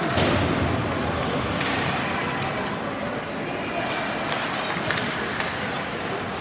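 Ice hockey play in a rink: a steady wash of skate and rink noise with a few sharp knocks of sticks and puck, one near the start, one about a second and a half in and one about five seconds in.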